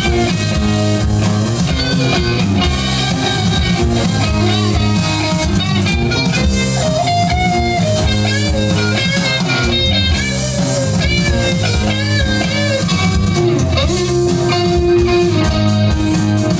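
Rock band playing: an electric guitar lead with bending notes over a steady bass line and drum kit.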